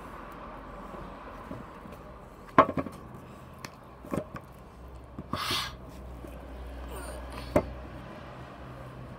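Ice cubes being bitten and chewed: a few sharp cracks, the loudest about two and a half seconds in, and a short crunch about five and a half seconds in.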